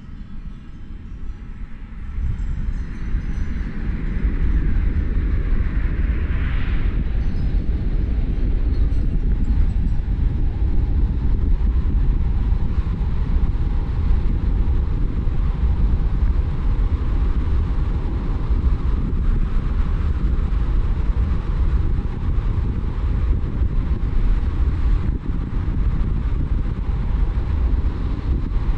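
Car driving on a mountain road: a steady low rumble of road, tyre and engine noise, swelling about two seconds in. A hiss rises over it and breaks off about seven seconds in.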